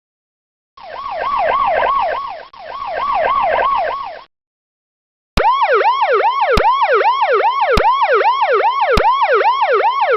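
Police car siren in a fast yelp, its pitch sweeping up and down a few times a second. A first short burst swells and fades twice, and after a pause a louder steady stretch starts about halfway through, with a sharp click about every second.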